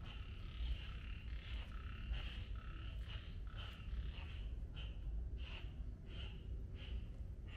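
Small animals calling in short, repeated high calls, about one or two a second, over a steady low rumble.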